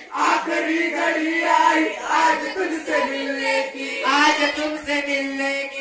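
Teenage boys singing a Hindi song together, one leading into a microphone, in long drawn-out notes that slide in pitch.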